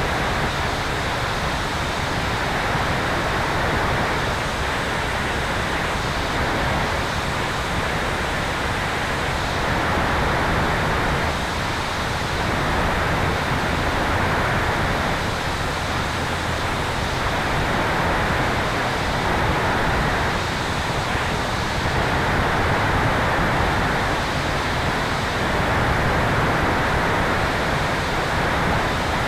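Steady rush of airflow around an electric Sonex Xenos in cruise flight, heard from a tail-mounted camera, with a faint steady high tone above the rush.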